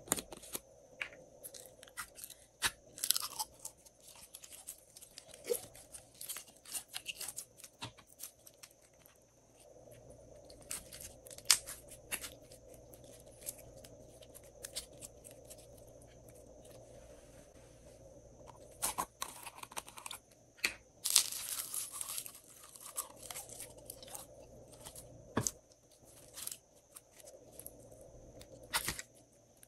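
Clear glossy slime with pink glitter being squeezed, pulled and stretched by hand, giving irregular sticky crackles and pops. The crackling comes in denser clusters about three seconds in and again around twenty seconds in.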